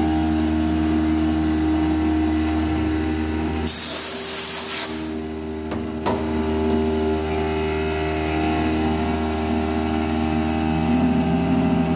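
Langmuir MR-1 CNC mill spindle running steadily with several held tones as an end mill cuts 8670 carbon alloy steel under flood coolant. About four seconds in, a one-second hissing blast of compressed air blows the chips off the cut, followed by a couple of sharp clicks.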